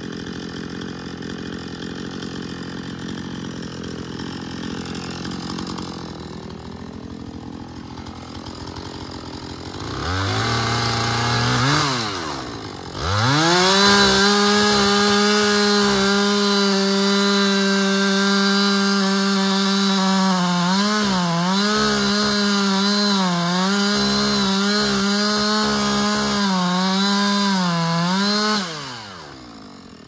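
Two-stroke Husqvarna chainsaw idling, then revved up about a third of the way in and held at full throttle while cutting into the tree trunk at its base. The engine pitch dips several times under load before it drops back to idle near the end.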